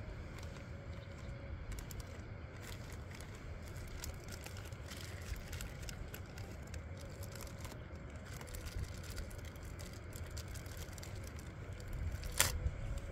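Paper and plastic packets of puja offerings rustling and crinkling as they are handled and laid out on stony ground, with scattered small clicks and a sharper click near the end, over a steady low rumble of wind on the microphone.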